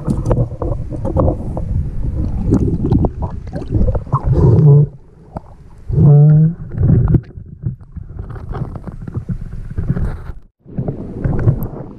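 Water sloshing and gurgling against a camera moving through the water and breaking the surface, with many small knocks and two short low drones around the middle of the sound; the sound cuts out briefly near the end.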